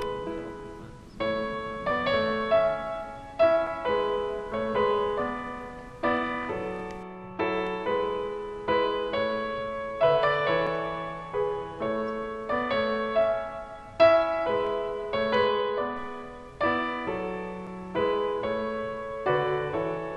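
Background piano music: an even run of struck notes over sustained chords, each note fading after it is played.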